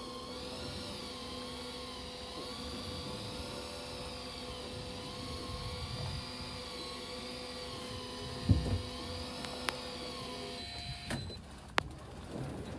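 Electric fishing reel motor winding in line: a steady whine that wavers slowly in pitch, cutting off about eleven seconds in, followed by a few sharp clicks.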